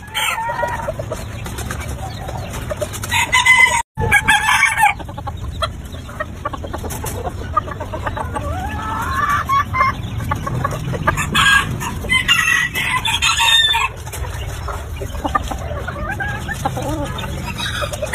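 Rooster crowing several times, with clucking between the crows. The calls come in groups, about three seconds in and again from about eleven to fourteen seconds. The sound drops out briefly about four seconds in.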